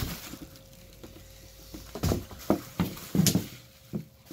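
Bubble wrap rustling and crinkling as bubble-wrapped packages are handled, with a short crinkle at the start and then a run of crinkles and soft knocks from about two seconds in as the wrapped items are set down on the floor.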